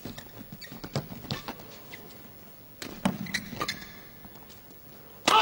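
Badminton rackets striking a shuttlecock back and forth in a fast doubles rally, a run of short sharp hits, with shoes squeaking on the court. A sudden loud burst of noise comes near the end.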